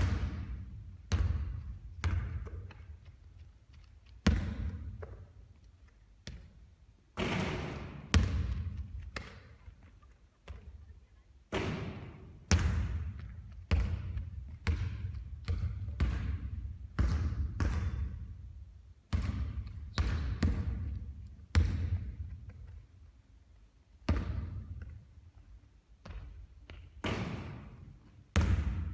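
Basketballs bouncing on a hard court again and again during three-point shooting practice. The strikes come about once a second, sometimes two or three close together, and each dies away with a short ring.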